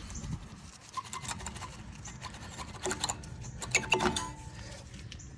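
Light metallic clicks and scrapes of brake hardware being worked loose by hand: the pads and their spring-steel retaining clips wiggled out of a single-piston caliper bracket. A cluster of sharper clicks with a brief ring of thin metal comes about four seconds in.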